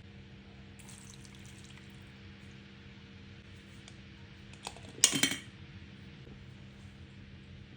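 A kitchen utensil clattering sharply against a dish once, about five seconds in, with a little scraping before it, over a steady low hum.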